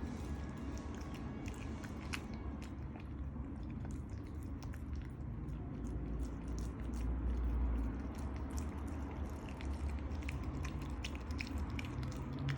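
A miniature dachshund chewing and biting on chicken, with many small, sharp crunching clicks.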